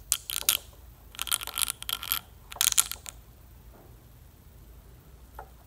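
Carpenter's glue squirted from a syringe under lifted wood veneer: three short bursts of crackly, spitting hiss over about three seconds, then only faint room noise.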